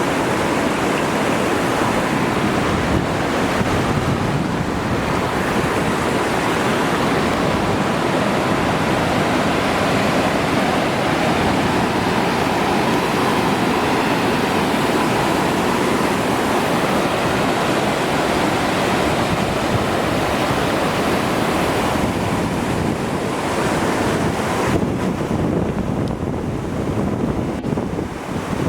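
Bassi Falls rushing: a steady, loud waterfall roar, a little duller and softer in the last few seconds.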